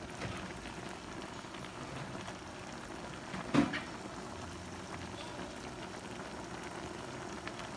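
A large pot of leafy vegetable soup with meat bubbling and simmering on the stove, a steady hiss of boiling. There is one short sharp knock about halfway through.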